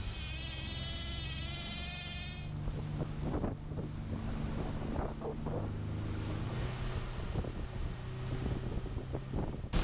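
Fishing boat under way at trolling speed: Yamaha 250 outboard running with a steady low hum, wind buffeting the microphone and water rushing and slapping along the hull. A high wavering whine sounds for the first two seconds or so and stops abruptly.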